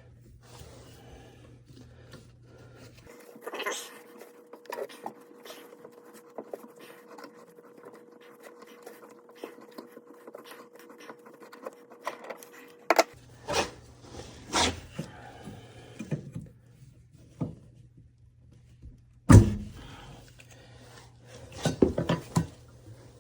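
Scattered clicks and knocks of hand work on copper supply pipe and fittings, with one loud sharp knock about nineteen seconds in.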